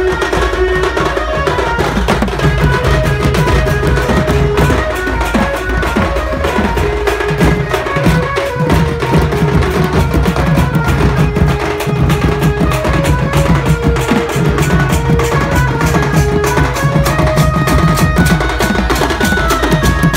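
Sambalpuri singh baja band playing loudly. An electronic keyboard carries the melody in short held notes over a steady rhythm of hand drums and cymbals.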